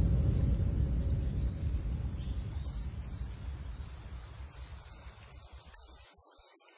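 Rolling thunder: a deep rumble that fades away over about six seconds, with insects trilling steadily.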